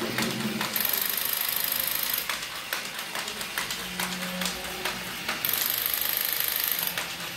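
A battery-powered toy's small motor buzzing with a high whine in two runs of about a second and a half, one starting near the first second and one a little past the middle. Between the runs come light clicks and knocks of plastic being handled.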